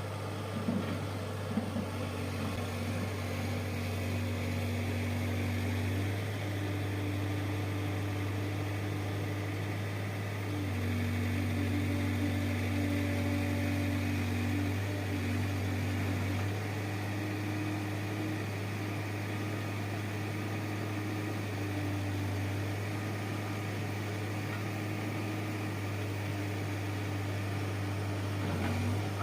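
Diesel engine of a heavy construction machine running steadily at a constant speed, a low hum with higher tones that come and go every few seconds.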